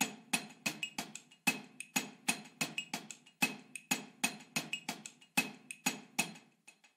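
A steady run of sharp percussive ticks, about three a second, laid in as a beat in the soundtrack; the ticking stops shortly before the end.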